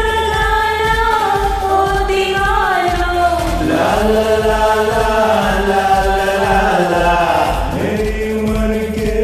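Amateur voices singing a Hindi film song together in a Smule karaoke recording, over the song's backing track with a steady beat; women's voices give way to a group of men's voices.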